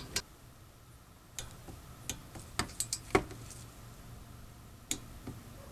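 Torque wrench tightening the brake caliper bolts: a handful of sharp, separate metallic clicks, the loudest about three seconds in.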